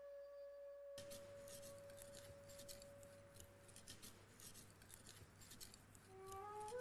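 Faint, quick scraping strokes of a steel Japanese kitchen knife slid back and forth on a fine 8000-grit whetstone: the final polishing stage of sharpening. Flute music holds a note for about the first second and returns with rising notes near the end.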